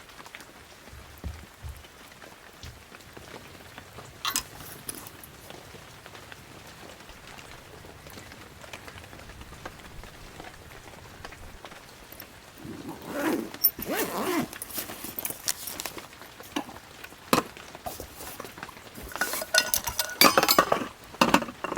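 Steady rain on a tent shelter, with scattered clinks and knocks of tableware. A louder run of clinks comes near the end.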